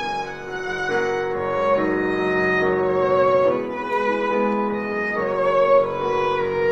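Live piano trio playing a ballad: the violin carries the melody in long notes with vibrato over piano and cello accompaniment.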